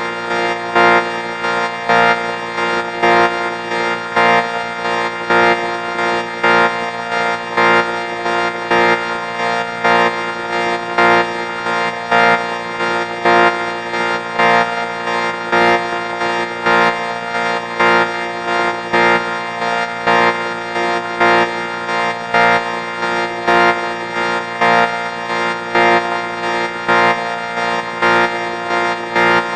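Synthetic 4ormulator vocoder sound effect: a steady, buzzy, organ-like chord that pulses in loudness about once a second, each pulse starting with a short surge.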